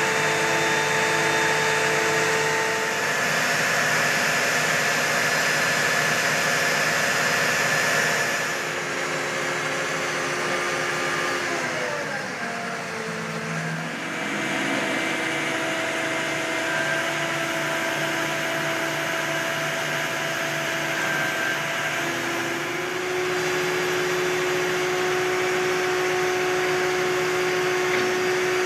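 Mobile crane's diesel engine running steadily under load, with a hum of several steady tones; about twelve seconds in the engine speed drops, then it settles and runs on at a new steady pitch.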